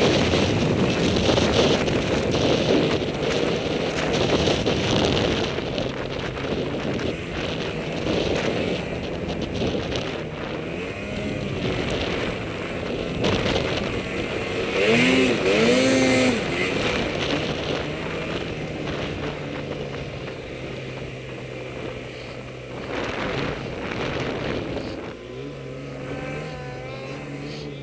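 Snowmobile engine running under way through deep snow, the pitch shifting with the throttle. About fifteen seconds in it revs up and back down once, and near the end it settles to a lower, steadier note.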